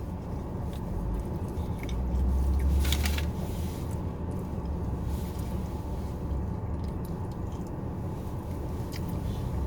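A person chewing food close to the microphone, over a steady low rumble that swells for a second or so around the middle, with a few small clicks.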